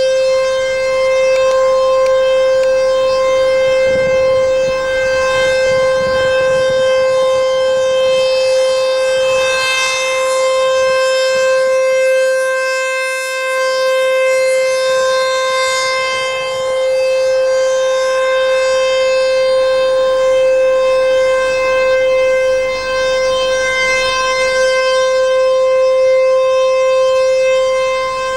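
ASC T-128 outdoor tornado warning siren sounding at full speed during a test, holding one steady tone, its loudness swelling and dipping slowly.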